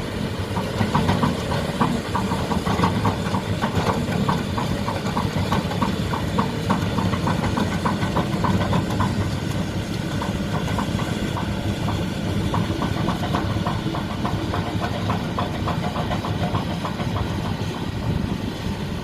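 Excavator's diesel engine running steadily as the machine levels soil, with a fast, even clatter of ticks over the engine noise.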